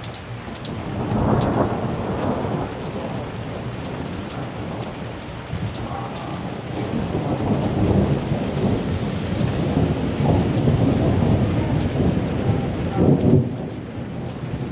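Thunder rolling over steady rain. One rumble builds about a second in, then a longer, louder roll swells from about six seconds, peaks near the end and drops away, while the rain keeps up a constant hiss with scattered drop ticks.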